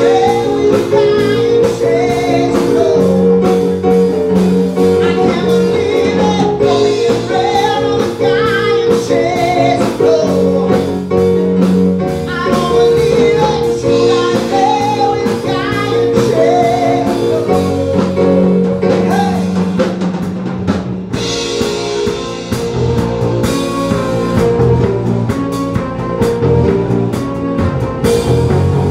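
Live pop-rock band playing: male lead vocal over keyboard, electric bass and a drum kit keeping a steady beat. The singing drops out after about twenty seconds, leaving the band playing on.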